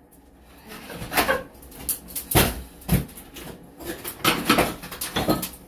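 Irregular knocks, bangs and scrapes of demolition work as a screwed-on wall board is pried and pulled loose, about eight blows in the span.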